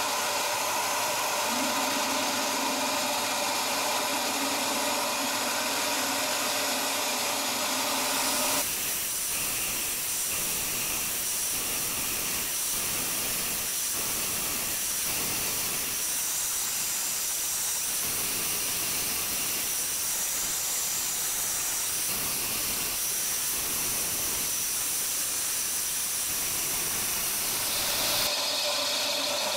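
Shop vacuum running steadily with its nozzle at the cutting tool, together with a lathe boring and facing a fibre-reinforced phenolic gear blank. About nine seconds in the sound changes abruptly to a rougher, uneven noise, and it changes back near the end.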